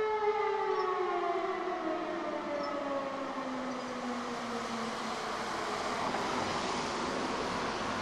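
E57 electromechanical siren sounding the fire brigade alert, its held tone winding down: the pitch falls steadily for about five seconds and fades out into wind and street noise.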